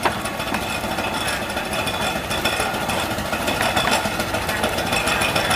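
A small engine running steadily with a fast, even knocking beat.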